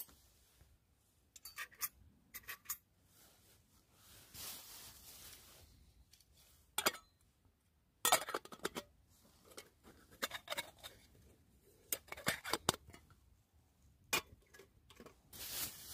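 Metal camping pans and utensils being handled, giving light, scattered clinks and clatters with pauses between them.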